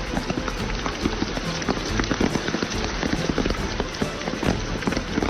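Hailstones pelting hard surfaces in heavy rain: a dense, irregular clatter of sharp hits over a steady rush of rain.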